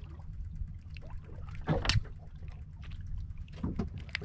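Steady low rumble on a small wooden fishing boat at sea, with scattered small clicks and rustles of fishing line and tackle being handled. A louder knock or scrape comes about two seconds in.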